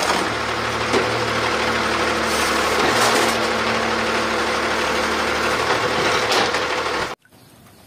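Automated side-loader garbage truck's engine running steadily while its hydraulic arm lifts a wheeled cart. The sound cuts off suddenly about seven seconds in.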